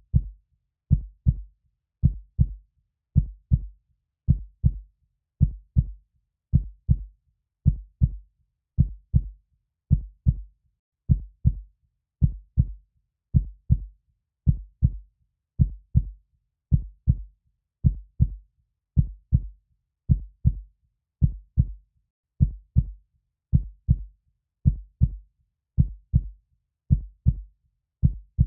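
Heartbeat sound: a slow, steady run of low double thumps (lub-dub), a little under one beat a second, the first thump of each pair the louder, with silence in between.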